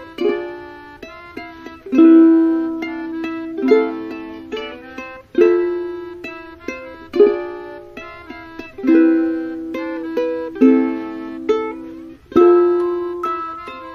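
Background music led by a plucked string instrument, strummed chords and picked notes that ring and die away, with a strong chord about every second and a half to two seconds.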